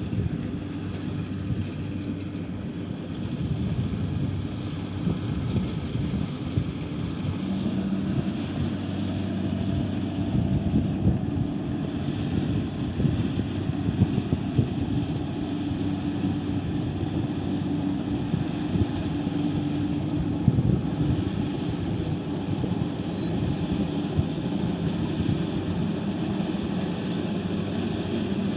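Engine of a rice-harvesting machine running steadily, a low hum with a few louder knocks.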